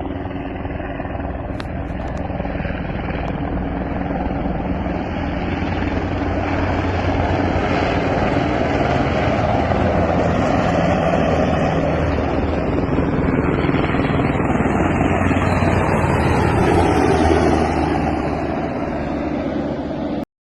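UH-60A Black Hawk helicopter rotor and twin-turboshaft engine noise, continuous and loud. It grows steadily louder to a peak about three-quarters of the way through, eases slightly, then cuts off abruptly near the end.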